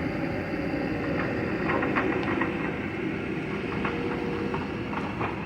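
Bobcat-type compact loader running, its engine rumbling steadily under a held whine, with scattered metallic clanks in two clusters, one after about a second and another near the end.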